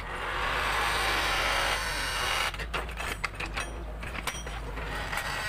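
Mini excavator at work, its diesel engine running steadily. A loud hiss for about the first two seconds gives way to a run of knocks and clatters as the bucket digs into soil and roots.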